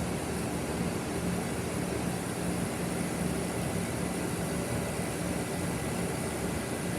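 Two central air conditioner condensing units running together, a 2011 Guardian 3-ton and a 1997 Weather King with a Bristol compressor: a steady compressor hum under even fan noise.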